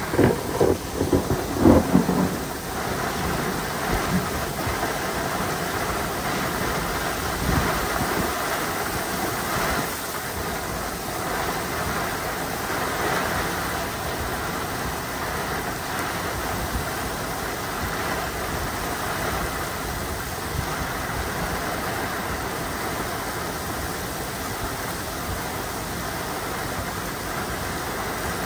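Thunder rumbling loudly in the first two seconds or so, then a steady downpour of heavy thunderstorm rain.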